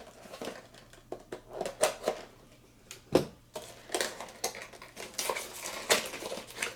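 A Heroclix booster pack being handled and opened: scattered clicks and rustling of packaging and plastic figure parts, a louder knock about three seconds in, then denser crinkling.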